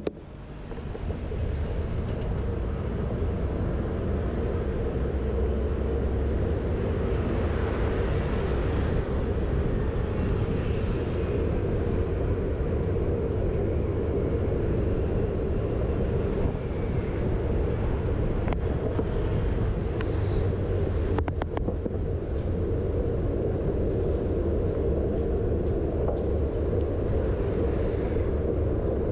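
Steady rush of wind and rolling noise from a moving bicycle, heard through the rider's camera microphone; it builds over the first second or so as the bike pulls away, and a few brief clicks come about two-thirds of the way in.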